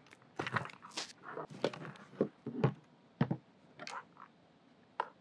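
Irregular clicks, knocks and short scrapes of plastic and rubber as a vacuum motor is worked free of its housing's rubber isolator plungers. The handling noise trails off about three and a half seconds in, with a single click near four seconds.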